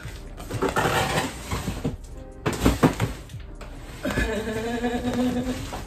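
Background music, with a large cardboard carton being shoved and tipped: a few dull thumps about two and a half seconds in. A long steady tone is held through the last two seconds.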